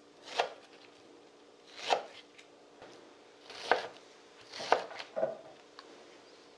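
A chef's knife cuts through a peeled Korean pear and knocks on a wooden cutting board, about five unhurried cuts spaced a second or more apart, with the last two coming closer together.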